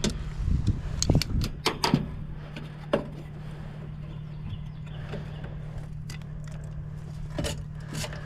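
Scattered clicks and light knocks of parts and tools being handled while working on a furnace, over a steady low hum. A cluster of knocks falls in the first two seconds, with a few more later.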